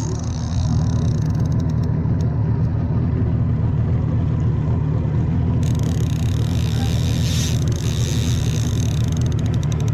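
Fishing boat's outboard motor running steadily, a low even hum.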